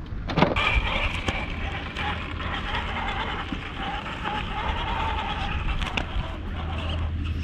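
Radio-controlled rock crawler's electric motor and drivetrain whining steadily as it crawls over rock, the pitch wavering slightly, with a few sharp clicks of contact.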